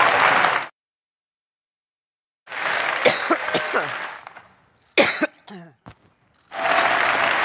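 A woman coughing several times into a microphone at a lectern, with one hard, loud cough and short throat-clearing bursts after it, over the noise of a large hall. Applause cuts off abruptly just under a second in and starts up again near the end.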